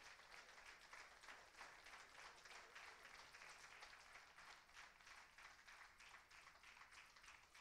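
Audience applauding, faint and steady, thinning out near the end.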